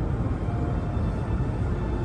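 E2 series Shinkansen train running: a steady rumble with a few faint, steady tones above it.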